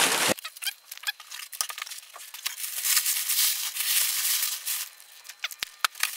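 Cardboard and plastic shrink-wrap packaging being handled and crinkled, a rustling with scattered sharp clicks and taps, loudest around three to five seconds in.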